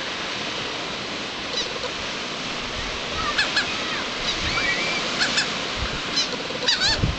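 Steady wash of surf and wind, with short, high calls of birds breaking in several times, in clusters from about a second and a half in to near the end.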